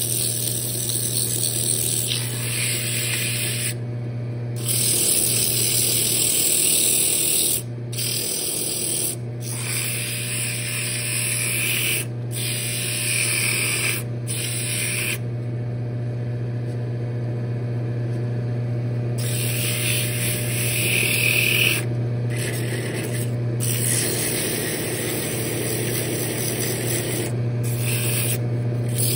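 Sandpaper hissing against a wooden lid spinning on a wood lathe, over the steady hum of the lathe motor. The hiss stops for a moment many times and is weaker for a few seconds around the middle.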